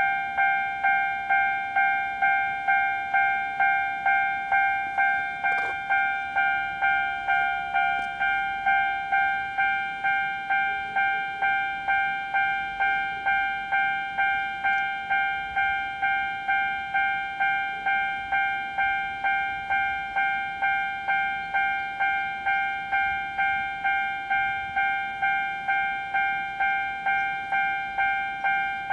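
Japanese railway level-crossing warning bell ringing steadily, a repeated electronic ding just under twice a second: the crossing is down for an approaching train.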